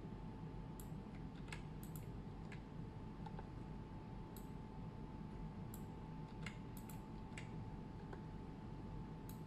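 Scattered, irregular clicks of a computer mouse and keyboard, some in quick pairs, over a faint steady electrical hum with a thin tone.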